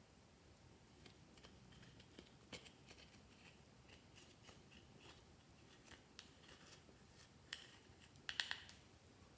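Clear slime being worked by hand: faint, scattered sticky clicks and little pops, with a louder cluster of clicks near the end.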